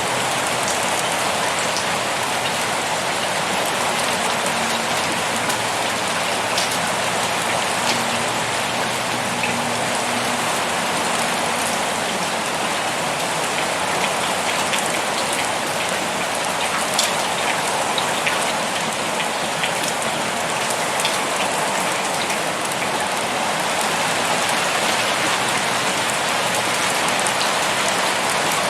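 Steady rain falling, with many separate drops ticking through the even hiss.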